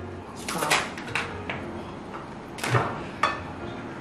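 Cooked crab shells cracking and snapping as they are broken apart by hand: about half a dozen short, sharp cracks spread over a few seconds.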